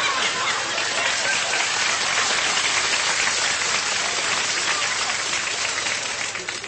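Studio audience laughing and applauding, a steady dense patter of many hands clapping.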